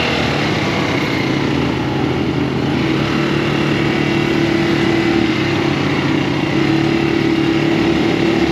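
Off-road buggy's small engine running steadily with a constant hum.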